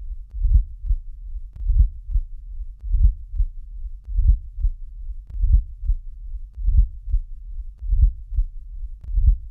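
Heartbeat with a late diastolic murmur: a low-pitched rumble late in diastole, timed with atrial contraction and running up to the first heart sound, about one beat every second and a quarter. Such a murmur is usually part of the diastolic murmur of mitral or tricuspid stenosis.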